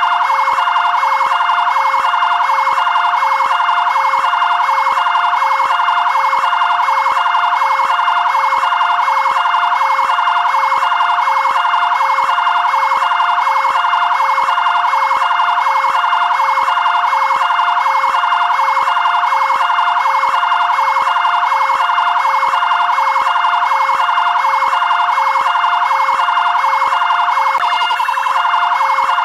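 Electronic siren of a fire brigade area-command vehicle, sounding loud and continuously in a steady, regularly repeating cycle.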